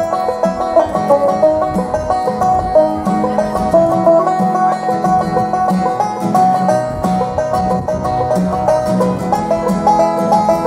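Banjo and acoustic guitar playing a bluegrass tune together, the banjo picking quick runs of notes over a steady guitar rhythm.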